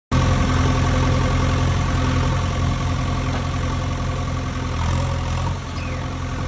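Heavy diesel engine running steadily at an even, unchanging speed, a deep hum with no revving.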